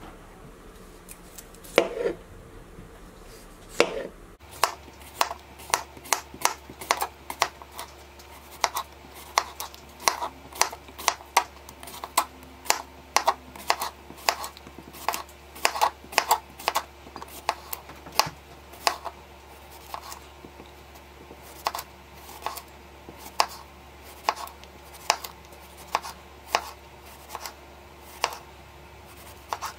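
Kitchen knife slicing a cucumber into rounds on a cutting board: a long series of sharp taps as the blade strikes the board, about two a second, steady from a few seconds in.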